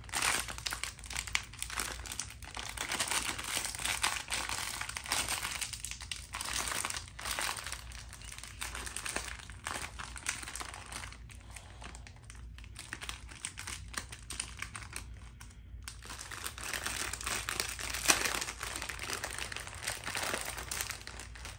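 A small foil snack bag of mini Cheetos crinkling and crackling continuously as it is squeezed and tugged at by small hands to get it open.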